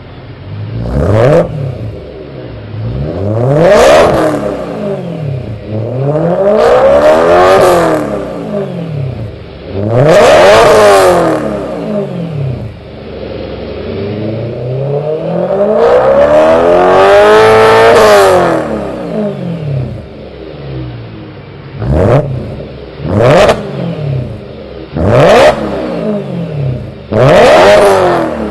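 ESS-tuned 2011 BMW E92 M3's S65 V8 breathing through an Eisenmann Race Exhaust with a Challenge Sport X-pipe, revved from idle about nine times. Most revs are quick blips that rise and drop straight back; two are longer, held climbs, the longest in the middle of the run.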